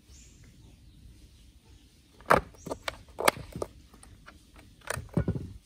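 Sharp plastic clicks and knocks from handling a mini gasoline chainsaw's plastic top cover as it is put back over the air filter. After a quiet start there are a few separate clicks from about two seconds in.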